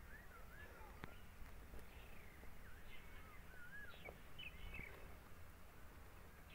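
Faint bird song: short, swooping, up-and-down whistled phrases repeating over a low background rumble.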